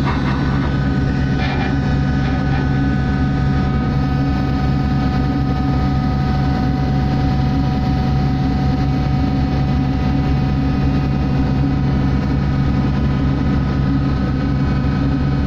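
Shipboard machinery running steadily: a loud low drone with a few steady whining tones above it.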